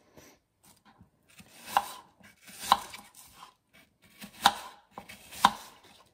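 Kitchen knife dicing apple on a wooden cutting board: irregular sharp knocks of the blade striking the board, four louder ones about a second apart with softer cuts between.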